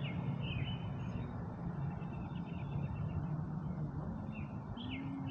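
Kawasaki Z650 parallel-twin engine with an Akrapovič exhaust idling steadily while the bike stands still. Small birds chirp a few times near the start and again near the end.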